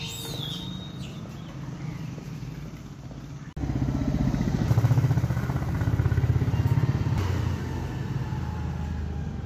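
Street traffic hum, then about three and a half seconds in a motor vehicle engine running close by comes in suddenly and louder, with a fast even pulse.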